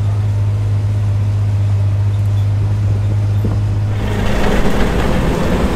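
Sherp's Kubota diesel engine running with a steady low hum. About four seconds in, the sound cuts abruptly to a louder, rougher engine run.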